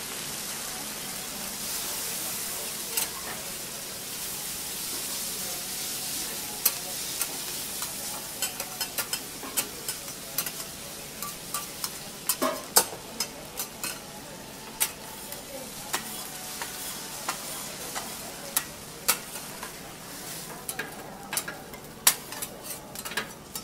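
Noodles and cabbage sizzling on a flat steel teppan griddle while being stir-fried, with metal spatulas clacking and scraping on the plate. At first it is mostly a steady sizzle; the sharp spatula clacks start about a quarter of the way in and come thicker toward the end.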